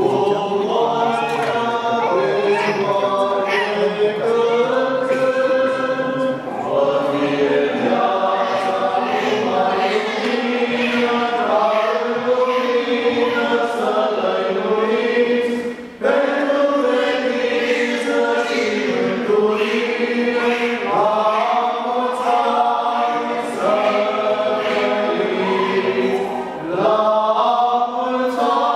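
Small church choir singing Orthodox chant unaccompanied, several voices in harmony, with a short break about halfway through.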